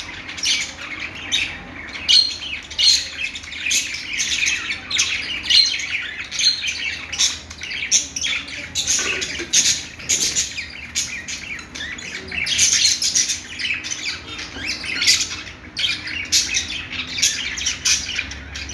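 Budgies chirping and chattering continuously, a dense run of quick high chirps broken by short squawks.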